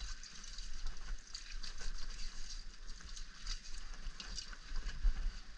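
Liquid running from a small tap and splashing over hands as they are rubbed clean under it: a steady hiss with many small splashes.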